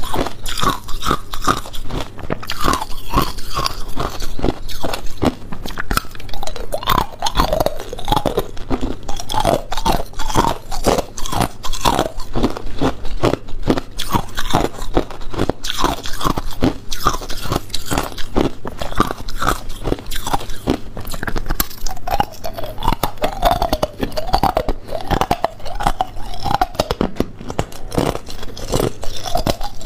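Ice being bitten and chewed: loud, rapid, irregular crunching that goes on without a break.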